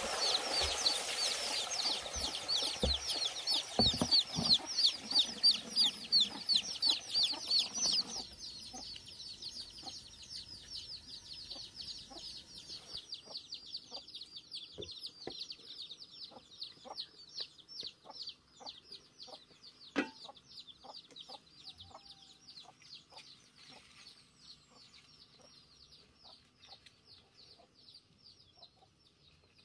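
A group of chicks peeping continuously in fast, high chirps, loud for the first eight seconds and quieter after that. Scattered light clicks run under the peeping, with one sharper click about two-thirds of the way through.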